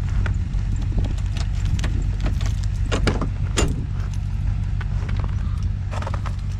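An engine idling steadily, with irregular light clicks and jingling like keys over it.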